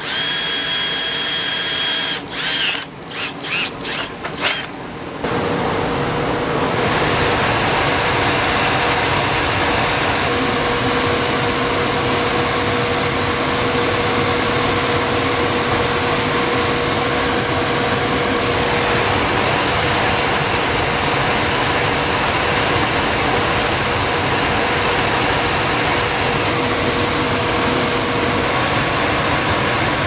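A cordless drill whines as it bores a test hole through a gas furnace's sheet-metal flue pipe, then runs in a few short stop-start bursts. From about five seconds in, the running gas furnace gives a loud, steady hum with a faint steady tone.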